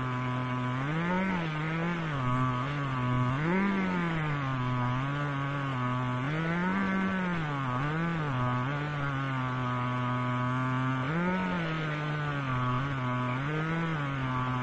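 Two-stroke chainsaw ripping lengthwise through a log in a homemade chainsaw-mill guide frame. The engine runs at full cutting speed, its pitch repeatedly rising and dipping several times as the load on the chain changes.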